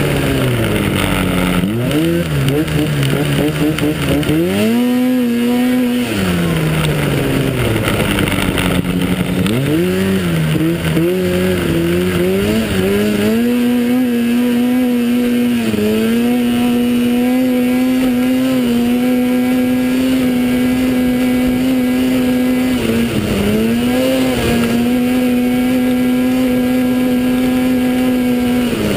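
Racing snowmobile engine at speed: the revs drop and climb again twice in the first dozen seconds, then hold at a steady high pitch at full throttle, dipping briefly about two-thirds through, over a steady rush of wind and track noise.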